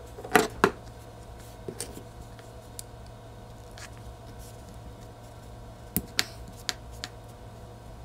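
Small metal clicks and clinks from chrome water-valve parts being handled and gripped with pliers at the valve stem's nut. There are two sharp clicks near the start, a few light ticks, then a cluster of clicks about six seconds in, over a steady low hum.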